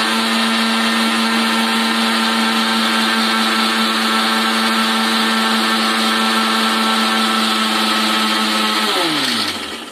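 Electric mixer grinder running at a steady speed, grinding ginger and garlic into a paste. Near the end it is switched off and the motor falls in pitch as it winds down.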